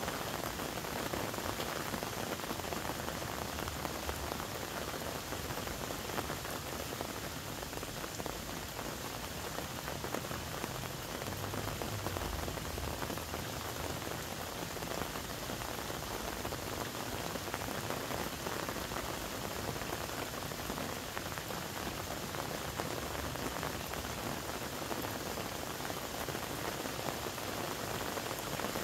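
Steady patter of falling water, an even, unbroken hiss of many small drops.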